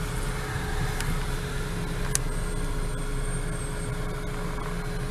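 Car interior noise in slow traffic: a steady low rumble of the engine and tyres heard from inside the cabin.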